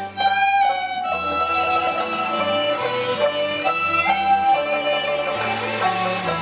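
Cantonese opera accompaniment ensemble playing an instrumental passage led by bowed strings, with a short struck accent right at the start.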